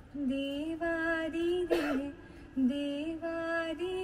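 A woman singing long, held notes of a slow devotional melody, with a short breathy sound about two seconds in.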